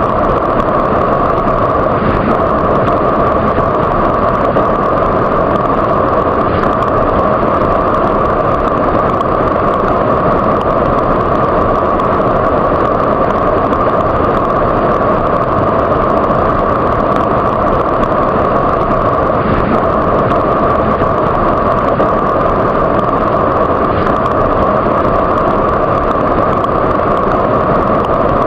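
Waterfall: a steady rush of falling water, unchanging in level.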